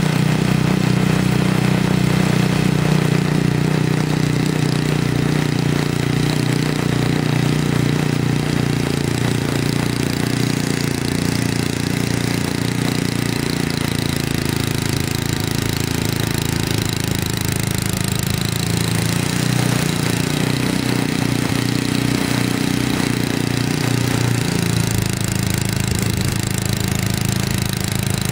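1970 Sears Craftsman 8-horsepower two-stage snowblower engine running steadily at high throttle while the machine is pushed through deep snow, its note shifting slightly about two-thirds of the way through.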